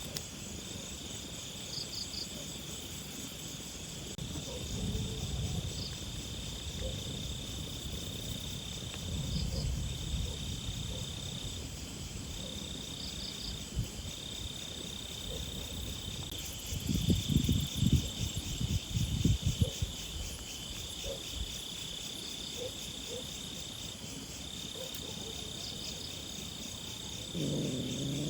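Insects trilling in the grass, one steady high-pitched trill broken by brief gaps every second or two. Partway through, a few seconds of low rumbling bumps are louder than the trill.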